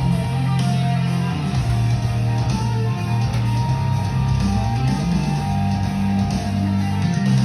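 Guitar-led music with a steady bass line, no speech.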